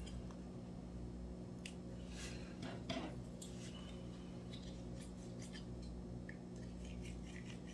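Scattered short scrapes and snips of a hand tool trimming the rough edges off a plastic robot part, over a steady low hum.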